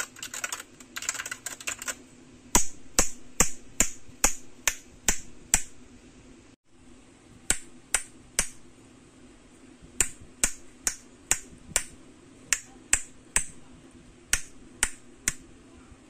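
Finger snaps: sharp single clicks about two to three a second, in short runs of three to eight with brief pauses between, starting a couple of seconds in.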